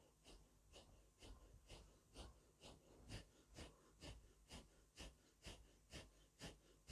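Quiet, rapid, forceful breathing in a steady rhythm, a little over two hissing breath strokes a second: the breath-driven 'Allah-Hu' zikr of Sufi practice.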